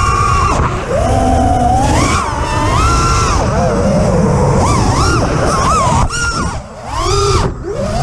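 FPV racing quadcopter's brushless motors whining, the pitch rising and falling with every throttle change, over wind rushing past the onboard microphone. The whine drops away briefly a few times, twice near the end, as the throttle is chopped.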